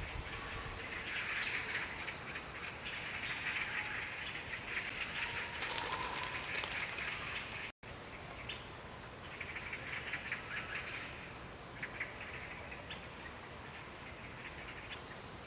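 Lettuce leaves rustling and snapping as they are picked by hand, in short bouts of crisp crackle. The sound drops out for an instant a little past halfway.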